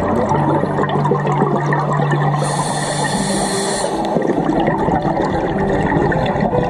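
Underwater bubbling and gurgling of scuba divers' exhaled air through their regulators, with a high hiss lasting about a second and a half, starting about two and a half seconds in.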